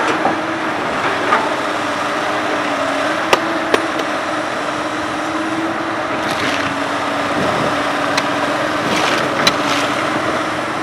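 Komatsu PC200 hydraulic excavator's diesel engine running steadily, its pitch wavering a little, with a few sharp knocks.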